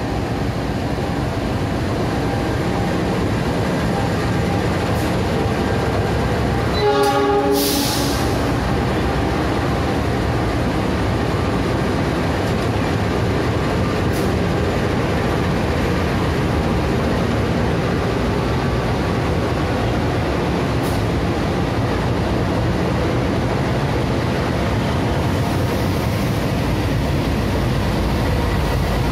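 Indonesian CC 206 diesel-electric locomotives running steadily. About seven seconds in comes a short train-horn blast, lasting about a second, together with a sharp burst of air hiss.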